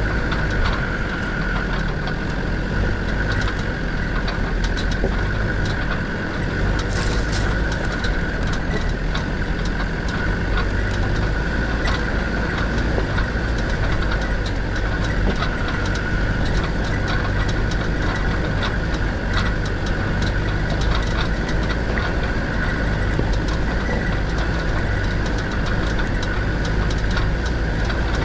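Land Rover Defender TD5 90's five-cylinder turbodiesel engine running steadily, with a steady high whine over it and scattered clicks and knocks.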